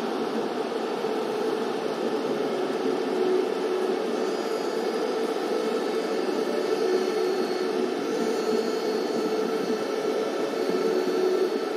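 Steady rushing noise with a faint hum running through it, unchanging and without any distinct events.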